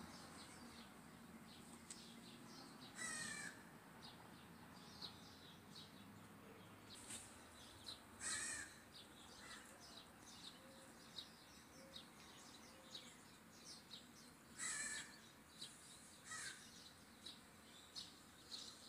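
Birds calling: four louder, short calls spread through the stretch, over many faint high chirps.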